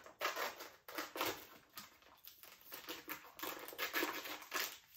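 Thin plastic packaging crinkling and rustling as it is handled and cut open with scissors, a quick, irregular run of rustles and snips.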